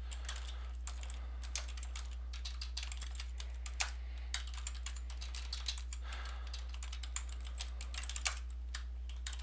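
Typing on a computer keyboard: a run of irregularly spaced key clicks, over a steady low hum.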